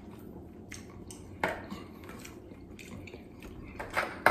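Boiled clam shells clicking and clacking against one another and against a glass bowl as a hand picks through them, a few separate clicks with a louder clack near the end.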